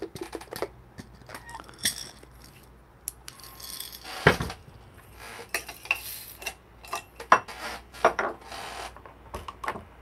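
Clinks, taps and rattles of metal and ceramic coffee gear being handled: cups, dosing cup and a manual espresso grinder. Sharper knocks stand out about four and seven seconds in.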